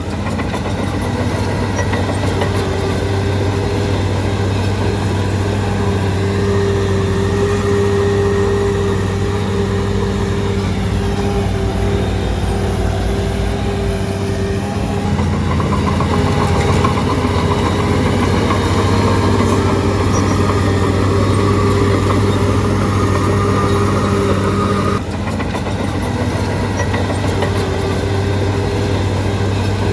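Shantui DH17C3 bulldozer's diesel engine running steadily, getting a little louder about halfway through, with a sudden dip in level near the end.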